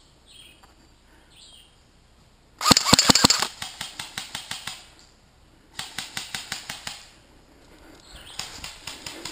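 Airsoft rifle firing rapid strings of shots, about seven a second, in three bursts: a loud one about two and a half seconds in, another about six seconds in, and a fainter one near the end.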